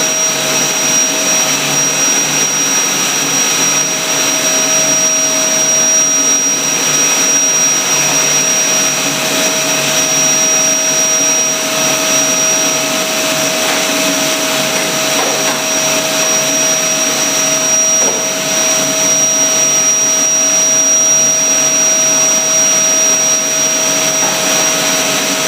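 Vacuum cleaner running steadily, a loud whooshing hum with a steady high whine, its pitch shifting slightly now and then as it is pushed over the kitchen floor.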